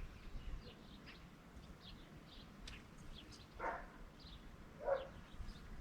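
Outdoor pond-side ambience of small birds chirping, with two louder short animal calls about halfway through and near the end.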